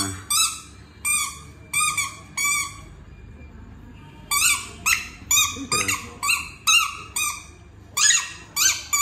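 Yellow spiky rubber squeaky ball squeaking over and over as a German Shepherd bites and chews it, a short high squeak about every half second, with a pause of about a second and a half near the middle.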